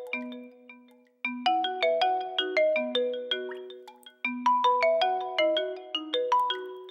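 Vivo V19 phone ringtone playing: a short melody of quick, bright struck notes like a marimba, looping about every three seconds. The phrase dies away near one second in and again near four seconds in, each time restarting after a brief gap.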